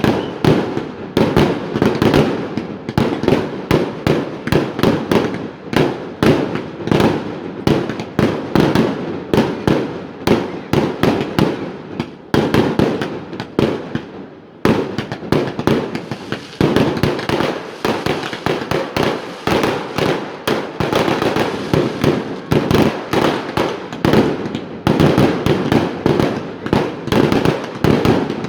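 Fireworks display going off continuously: rapid, dense volleys of sharp bangs and crackles, several every second, easing off briefly about halfway through before picking up again.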